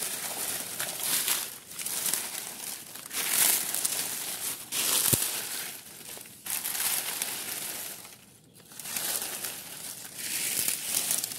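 Dry, crisp fallen leaves crunching and rustling as they are scooped and heaped over a small toy car, in several bursts with short pauses between them.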